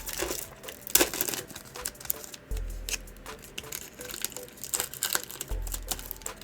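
Crinkling and rustling of a trading card pack's wrapper and cards being handled, with irregular crackles and a sharp crinkle about a second in.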